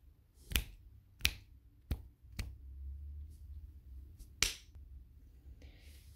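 A headset microphone being handled: five sharp clicks and knocks in the first four and a half seconds, over a low rumble.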